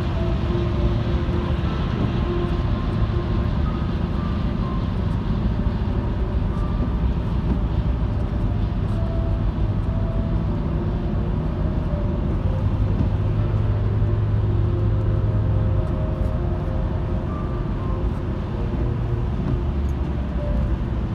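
Steady road noise from inside a car cabin at highway speed: a low drone of the engine and tyres, with tyre hiss on wet pavement.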